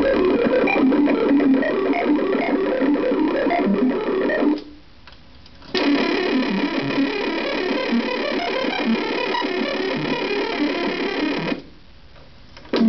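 MOTM modular synthesizer playing a rapid stream of random stepped pitches, a sample-and-hold fed with pink noise driving the oscillator through a low-pass filter. It plays the smoother sine-wave version first, drops out for about a second, then comes back brighter and buzzier as a sawtooth wave; near the end it drops out again briefly and resumes.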